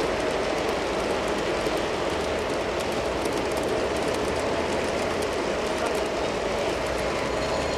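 Long G scale model freight trains rolling past on garden railroad track: a steady rolling rumble of wheels on rail, with many small rapid clicks.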